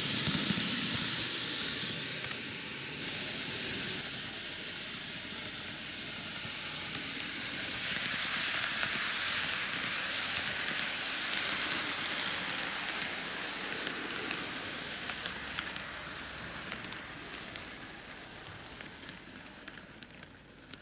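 Microace Keio 9000 series N-gauge model train running on TOMIX superelevated track: a steady rushing hiss of wheels and motor with fine rapid ticking. It swells as the cars pass close to the camera, then fades as the train draws away.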